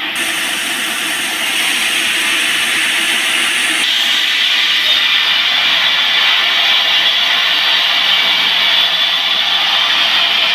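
Band sawmill blade cutting through a large teak log, a loud steady hissing rasp; the sound shifts abruptly about four seconds in.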